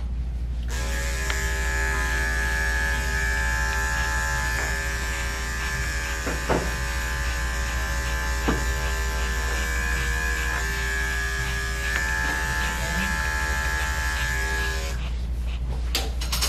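Electric dog grooming clipper running steadily as it shaves matted knots out of a dog's coat, switching on just under a second in and off near the end, with a couple of brief clicks midway.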